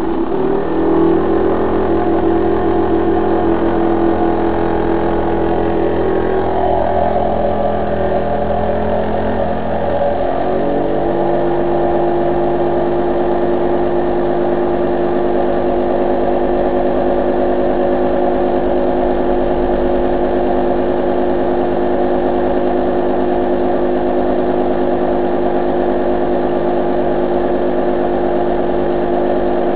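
Small single-acting oscillating steam engine with a 9 mm bore and 18 mm stroke running unloaded at about 3,000 rpm (50 revolutions a second), its rapid exhaust beats blending into a loud, steady pitched drone. Its tone shifts about ten seconds in, then holds steady.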